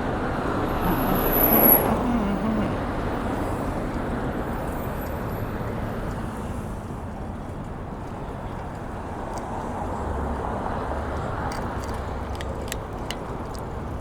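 Road traffic noise: a vehicle passes about two seconds in, then a steady traffic hum, with a few light clicks near the end.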